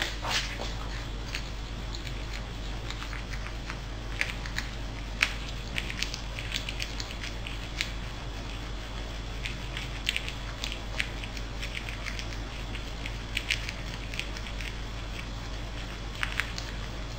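Pallas's squirrel nibbling and chewing a piece of white bread, making small, irregular crisp clicks and crackles.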